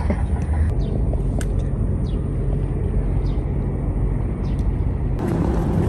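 Wind buffeting the microphone outdoors: a steady low rumble with no distinct events.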